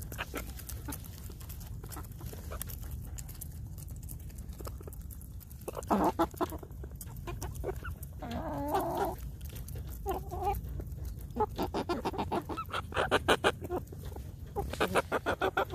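Young chickens clucking while they peck at treats, with a few short clucks through the middle. Many sharp clicks of beaks striking the ground and the camera come thick and fast in the second half.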